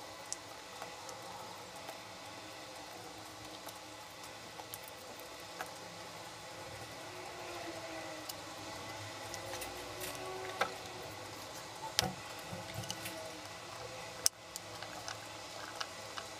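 Sliced onion being pulled apart into rings by hand on a bamboo cutting board, with a few sharp clicks against the board in the second half over a faint steady background hiss.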